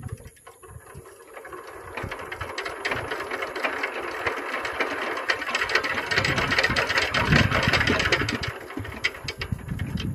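Single-cylinder diesel engine of a walking tractor (power tiller) running with a rapid clatter that builds up over the first few seconds and eases off near the end. The men suspect a fuel-feed problem, a clogged fuel filter starving the engine.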